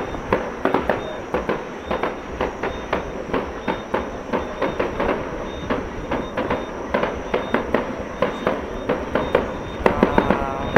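Fireworks display: a continuous run of bangs and pops, several a second, as rockets climb and burst into gold stars, with a quicker burst of louder bangs near the end.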